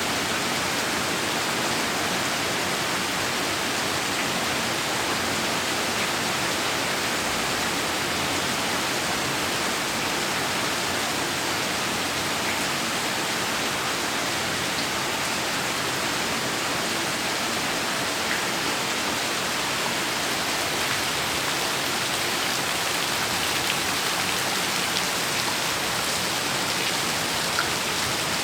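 Heavy rain falling steadily, an even hiss of rainfall with a few louder individual drops near the end.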